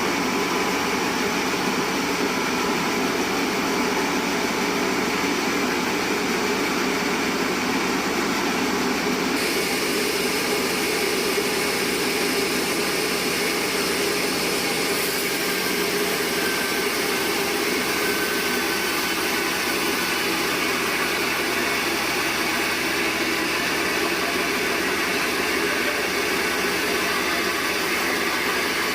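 A band sawmill running steadily as it saws a bayur log, making a continuous mechanical noise. The high hiss grows brighter about a third of the way in.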